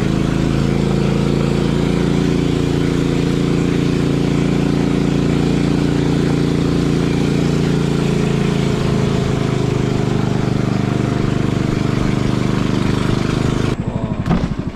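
Small wooden boat's engine running steadily under way, with water noise from the hull. Near the end it cuts to a slower, pulsing engine beat.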